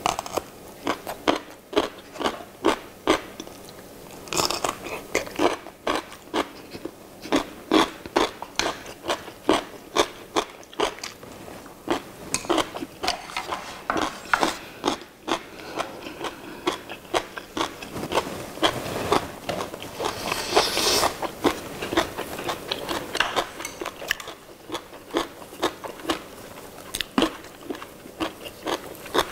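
Close-miked chewing and mouth sounds of people eating pumpkin-leaf wraps with rice and grilled fish: many short, sharp wet clicks and smacks several times a second, with no break.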